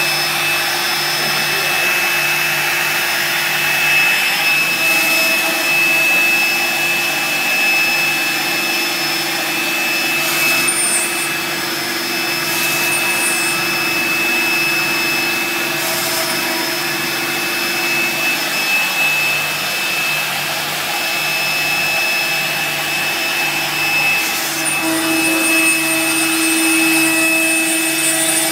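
CNC router running with its spindle motor whining steadily and a dust-extraction vacuum going, the cutter routing a wooden sheet; a lower hum shifts in pitch about three-quarters of the way through.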